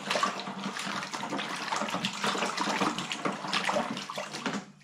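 A long plastic spoon stirring sugar into hot water in a plastic fermenting bucket: liquid swishing and sloshing, with quick ticks of the spoon against the bucket sides. It stops shortly before the end.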